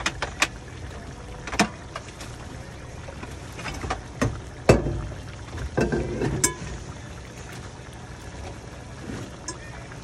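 Thick chicken curry sauce simmering in a frying pan, bubbles plopping and popping at irregular moments, several close together around the middle, over a steady low hum.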